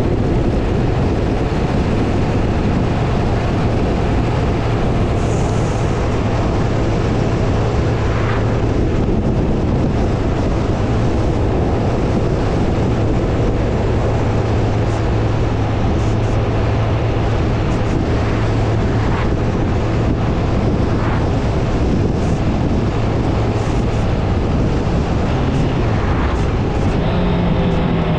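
A road vehicle driving: steady engine and road noise with a low drone that shifts up in pitch near the end.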